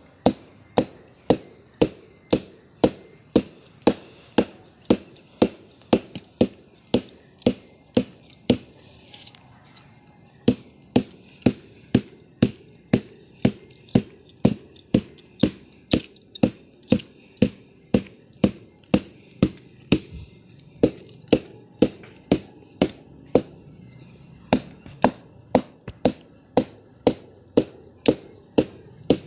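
Rhythmic knocks, about two a second, of a palm's flower stalk (manggar) being beaten for the first time, the beating done to start the stalk's sap flow for tapping. The knocking pauses for a couple of seconds near the middle and then resumes, over a steady high insect drone.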